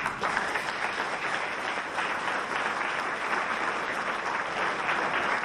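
A large audience applauding; the clapping breaks out all at once and keeps up as a dense, even patter.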